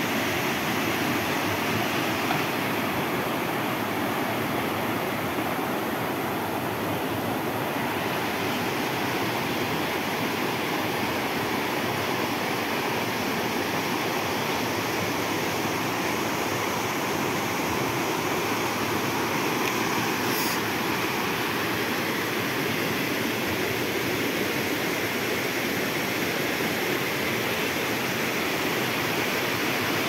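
Steady rushing of a rocky stream cascade, with whitewater pouring over and between boulders.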